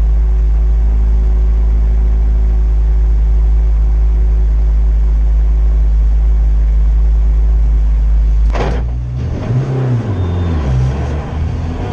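Ford Fiesta race car's EcoBoost engine idling steadily, heard from inside the caged cabin. About eight and a half seconds in there is a short sharp burst of noise, then the engine note rises and falls as the car pulls away.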